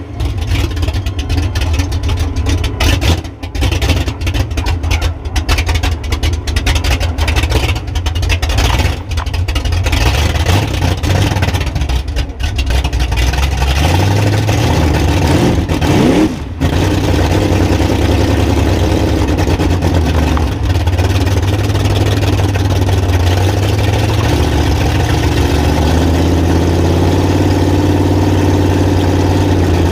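Mega truck's engine running hard under load, heard close up from under the truck. In the first half the sound breaks up again and again. About halfway a rising whine comes through, and after a brief cut the engine settles into a steady run.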